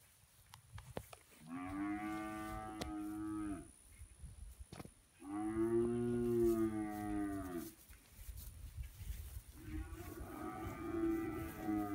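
Cattle mooing: three long moos, each lasting about two seconds, at a steady pitch and trailing slightly downward at the end. The third starts near the end and is still going when the sound cuts.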